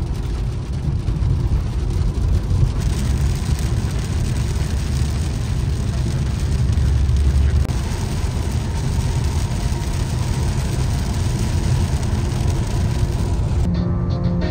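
Steady road noise inside a 2013 Ford Mustang's cabin on a wet highway: a low rumble with tyre hiss from the rain-soaked road. Music comes in near the end.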